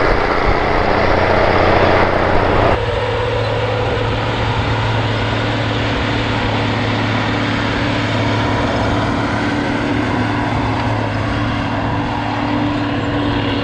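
Drone propeller whine for a little under three seconds, then an abrupt change to the steady running of a Steiger Cougar ST280 four-wheel-drive tractor's diesel engine under load, pulling a mulch finisher.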